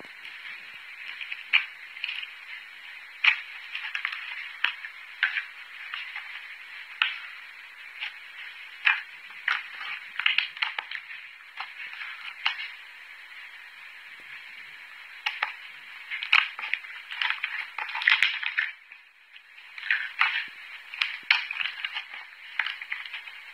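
Slime being squeezed, poked and folded by hand: irregular wet clicks, pops and crackles, in short runs with a brief pause near the end.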